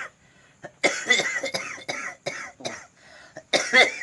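A man coughing: a run of harsh coughs starting about a second in, then a louder cough near the end. This is the chronic cough he has had for more than two years, for which no medical cause has been found.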